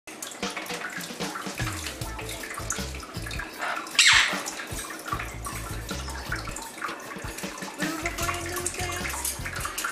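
Water splashing and dripping as green-cheeked conures bathe in the shallow dish of a pet water fountain, with many small splashes throughout. A single loud, harsh burst stands out about four seconds in.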